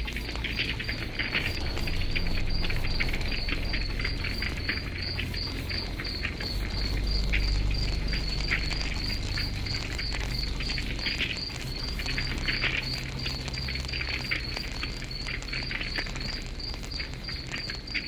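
Campfire crackling with scattered pops, over a low steady rumble, while a cricket chirps in an even rhythm of about three chirps a second.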